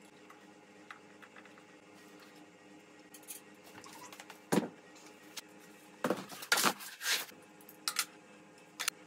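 Flat-pack desk parts being handled during assembly, with metal drawer rails, laminated panels and plastic wrap. A sharp knock comes about halfway through, then a burst of scraping and rustling, then a couple of short clicks near the end, over a faint steady hum.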